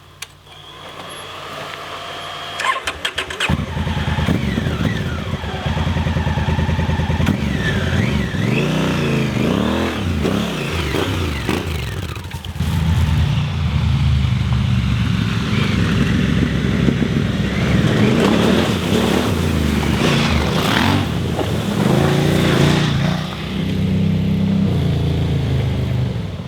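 Adventure motorcycle's twin-cylinder engine idling, then opened up about three and a half seconds in and pulling hard off-road, its pitch rising and falling with the throttle, before dropping away at the end.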